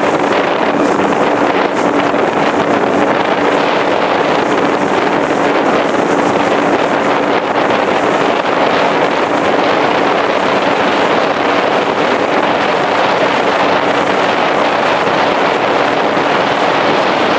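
Motorboat running steadily under way: a constant engine drone beneath heavy wind noise on the microphone.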